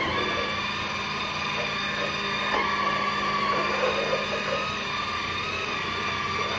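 Electric spin scrubber's motor running with a steady whine, its pitch wavering slightly, as the spinning pad scrubs wet, soapy tiles.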